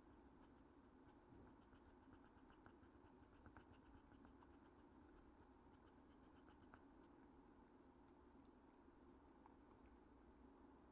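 Faint scratching of a graphite pencil on paper, laying down many short, quick hatching strokes.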